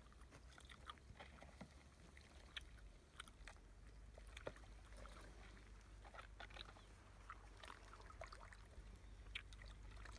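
Near silence: faint rustling and scattered small clicks over a low steady hum.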